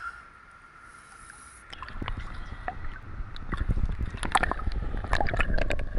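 River water splashing and sloshing right against the camera as a trout is lowered back into the water for release. It starts about two seconds in, with a low rumble of water buffeting the microphone and many sharp splashy clicks.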